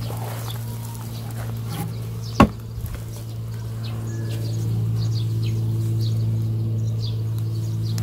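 Steady low drone of a running engine, growing a little louder about halfway through, with one sharp click about two and a half seconds in and faint bird chirps.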